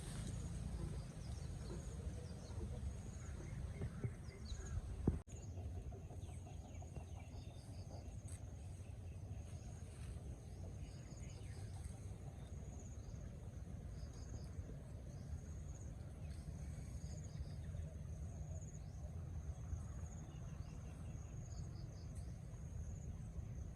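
Rural outdoor ambience: a steady high insect drone with repeated short high chirps from insects or birds, clucking chickens, and a low rumble of wind on the microphone. A single sharp click sounds about five seconds in.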